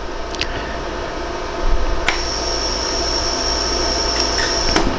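LaserStar jewelry laser welder firing single pulses, each a sharp click, as 14K yellow gold filler wire is fused onto the base of an earring post to thicken it. The shots come a few at a time: two close together at the start, a strong one about two seconds in, and more near the end. A steady high whine sounds from the second-second shot to the last, over a constant low machine hum.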